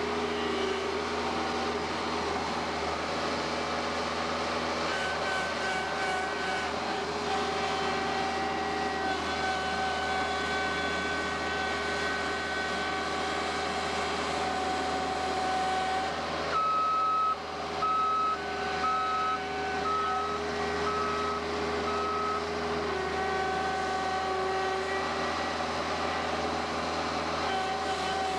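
Bobcat skid-steer loader's engine running steadily, its pitch shifting every few seconds as the machine works. Past the middle it gives a run of short, evenly spaced backup-alarm beeps for about five seconds.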